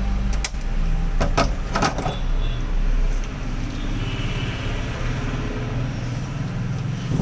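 Steady whirring hum of a hot-air rework station blowing, with a few sharp clicks about half a second, one and a quarter, and two seconds in.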